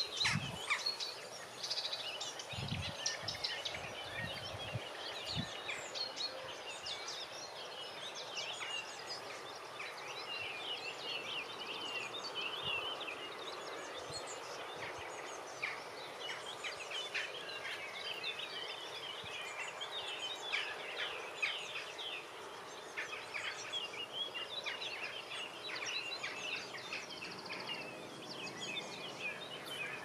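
Several songbirds chirping and trilling, many short overlapping calls throughout, over a steady outdoor background hiss. A few low bumps sound in the first few seconds.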